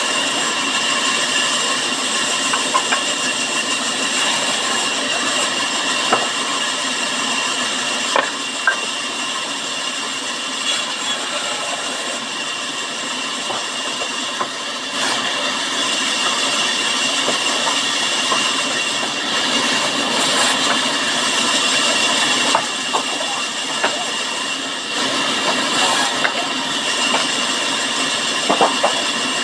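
Sawmill saw running steadily, a continuous machine noise with a high whine and a few short knocks and clicks scattered through it.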